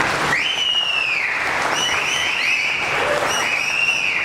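Audience applauding, with long high-pitched cheers gliding up and down over the clapping: two drawn-out ones and a few short ones.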